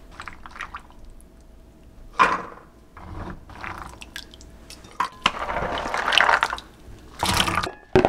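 Wet cooked chickpeas scooped with a wooden spoon from a rice cooker's inner pot and dropped into a plastic colander, a few scoops in turn, with soft squishing and dripping cooking liquid.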